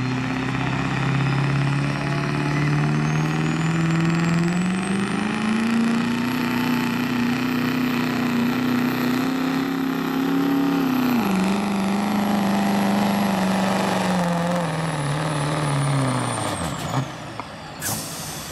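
Pro street diesel Chevrolet Silverado pickup making a full-throttle pull on a weight-transfer sled. The engine note climbs over the first several seconds and holds, with a high turbo whistle rising above it. It dips about eleven seconds in, then winds down and cuts off near the end as the pull stops.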